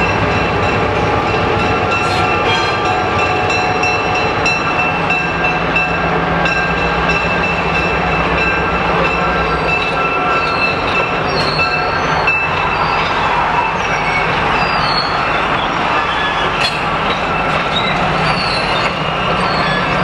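EMD GP7 diesel-electric locomotive running past, then its passenger coaches rolling over a wooden trestle. A thin, steady wheel squeal lasts through about the first twelve seconds. The engine's drone fades as the cars go by, with an occasional clack.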